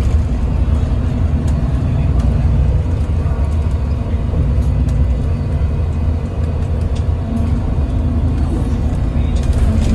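Yutong ZK6126HG city bus running along the road, heard from inside the passenger cabin: a steady low engine and road rumble.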